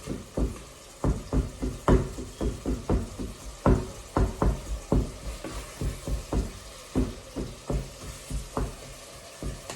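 Rapid, irregular knocks of a utensil against a pan, about three or four a second, while onion and garlic fry in butter with a faint sizzle.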